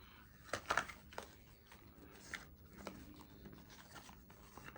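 Faint handling of a cardboard box and its packaging: a few soft clicks and rustles, most of them just under a second in.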